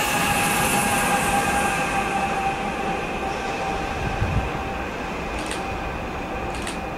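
ČD Cargo class 388 Bombardier Traxx electric locomotive running past and moving away, its steady whine and wheel rumble slowly fading. Two brief sharp high sounds come near the end.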